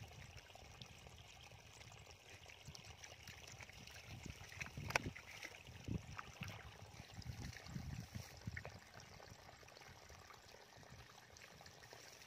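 Soft splashing and sloshing of hands moving through shallow muddy water while groping for fish in the mud, busier in the middle, with one sharp click about halfway.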